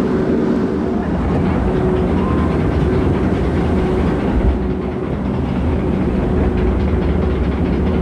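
Log flume boat being carried up a conveyor-belt lift hill: a steady mechanical rumble with fine rapid clicking and a faint hum that comes and goes.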